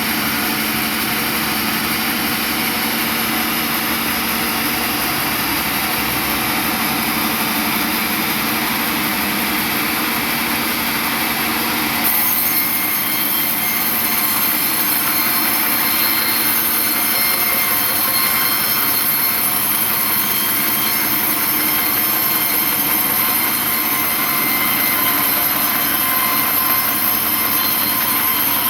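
Sawmill saw running steadily with a continuous mechanical drone. About twelve seconds in the sound changes abruptly, turning harsher with a strong high hiss added.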